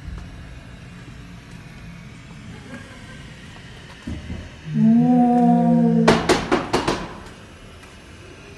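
Haunted-house scare effect: a low hum, then a long, loud, steady groaning tone that gives way to a rapid burst of about six loud rattling knocks.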